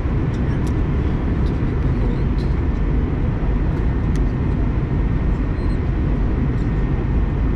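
Steady in-flight cabin noise of an Airbus A321-200 airliner: a loud, even low rumble with a faint steady hum above it.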